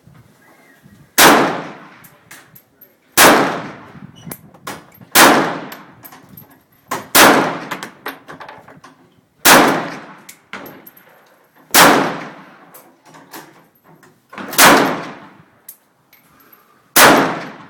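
Norinco MAK-90 semi-automatic rifle in 7.62×39 mm fired eight single shots at a slow, steady pace, about two seconds apart, each shot followed by a fading echo. The rifle fires every round without a hitch.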